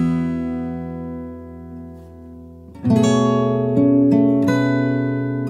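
Background music on acoustic guitar: a chord rings and fades away, then strummed chords start again about three seconds in.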